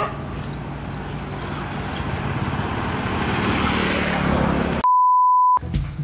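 Steady outdoor background noise that slowly swells, then, about five seconds in, a single pure electronic beep lasting under a second, with all other sound cut away beneath it.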